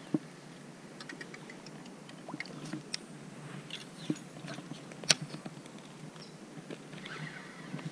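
Scattered small clicks and taps of handling noise from a baitcasting rod and reel being held and worked. A sharp click comes just after the start and another about five seconds in, over faint outdoor background noise.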